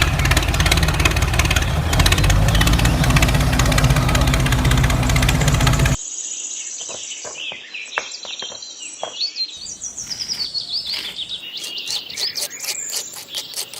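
Background music that cuts off suddenly about six seconds in, followed by birds chirping, with a few light clicks among the calls.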